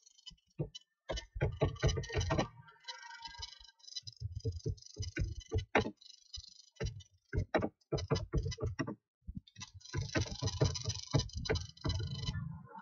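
Typing on a computer keyboard: irregular runs of quick key clicks, broken by short pauses.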